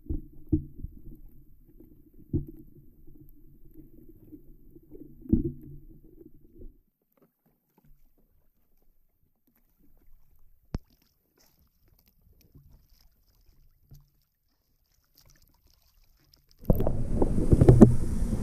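Muffled low sloshing of sea water against a half-submerged camera at the surface, with a few dull knocks, then near silence for about ten seconds. Near the end a louder muffled underwater rumble with knocks sets in abruptly.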